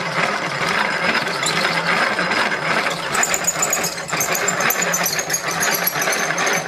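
Square wooden stock spun fast and fed slowly through a dowel maker's adjustable cutter blade, the blade shaving it round: a steady mechanical whirring and rasping with a faint high whine in the second half, stopping abruptly at the end.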